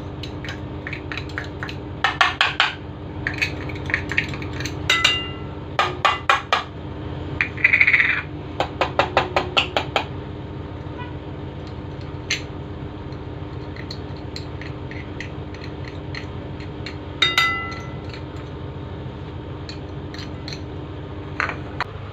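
Hand-held garlic crusher clicking and rattling as garlic cloves are crushed, in quick runs of clicks, with the gadget knocked against a ceramic bowl so that the bowl rings briefly, loudest about five and seventeen seconds in.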